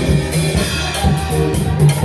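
Gospel worship band music with a steady drum beat and bass line.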